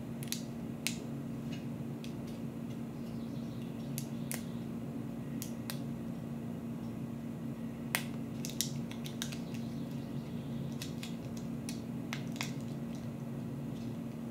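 Wrapper of a small individual butter packet crinkling and clicking under fingers as it is picked at and pulled to get it open, in sharp irregular crackles with a couple of louder ones about two-thirds of the way through. A steady low hum runs underneath.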